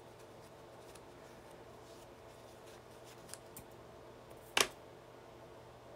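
Quiet room with a faint steady hum, broken by one sharp tap about four and a half seconds in and a fainter tick a little more than a second before it.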